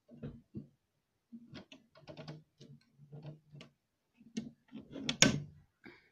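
Handling noise from a handheld camera being moved about: a string of small clicks, knocks and rubbing, with the loudest knock about five seconds in.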